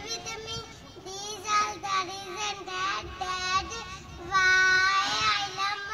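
A young boy's high voice reciting his speech into a microphone, in a drawn-out delivery with long held syllables, one of them held for most of a second near the end.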